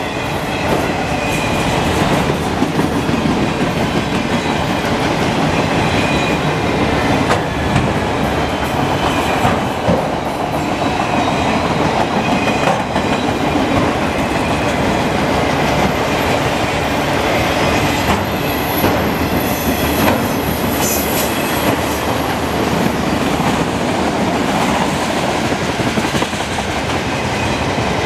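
Steel wheels of a freight train's autorack cars rolling past at speed: a loud, steady rolling noise with scattered clicks, and a thin high squeal from about two-thirds of the way through that lasts a few seconds.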